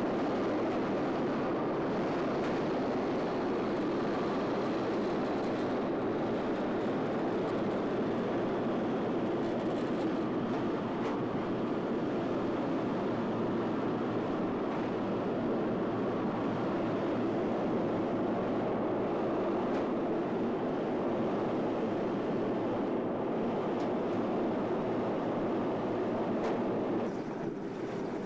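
Steady engine and airflow noise inside the cabin of a propeller aircraft in flight, an even drone. It drops in level and changes near the end.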